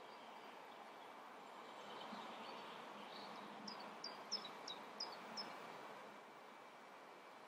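A bird outside gives a quick run of about six short, high chirps a few seconds in, over faint steady background noise.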